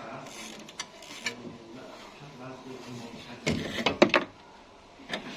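A quick cluster of sharp metallic clicks and knocks about three and a half seconds in, with one more click near the end: hand work with tools on the car's lower condenser fastenings.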